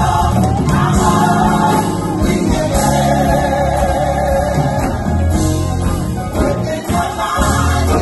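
Gospel choir singing with live musical backing and a strong bass line.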